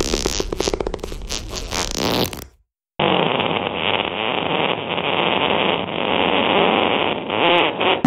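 Two fart sound effects. The first is a fast fluttering run of short pops that stops about two and a half seconds in. After a brief silence comes a long, rough, hissy one with a short flutter near the end.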